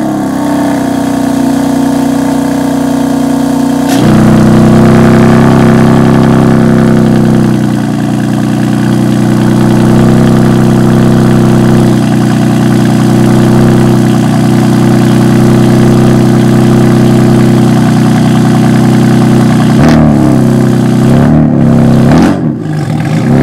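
Tuned BMW 335i's N54 twin-turbo inline-six running just after a cold start, having sat for about a month; its exhaust note gets suddenly louder and deeper about four seconds in, then settles into a steady high idle. A few revs near the end.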